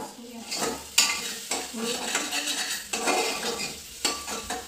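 Metal spoon stirring and scraping in a steel pot of sizzling masala for sambar, with sharp clinks against the pot about a second in and again near the end.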